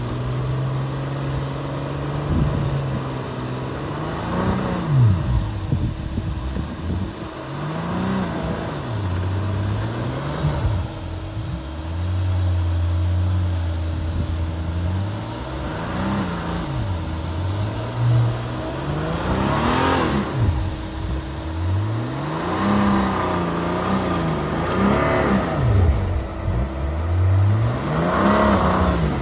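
Range Rover plug-in hybrid's petrol engine revving up and easing off again and again, every few seconds, as it drives off-road over uneven ground, with a rush of noise at each peak.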